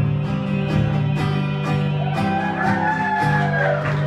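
Acoustic guitar strumming the closing bars of a song. About halfway in, a held, slightly wavering higher note comes in over the chords.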